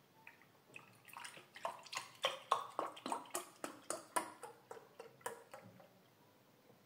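Milk glugging out of a carton into a glass mug: a quick run of gulps, about three a second, for roughly five seconds.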